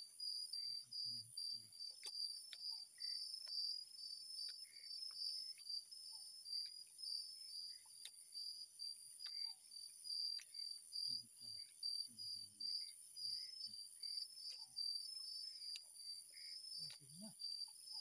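Night insect chorus, crickets trilling steadily: a high, rapidly pulsing trill with a higher even hum above it, dotted with faint scattered clicks.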